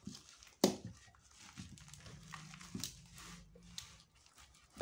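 Plastic wrap and bubble wrap crinkling under gloved hands working at a taped-up parcel. A single short, loud, sharp sound comes about half a second in, and a low steady hum runs for a couple of seconds in the middle.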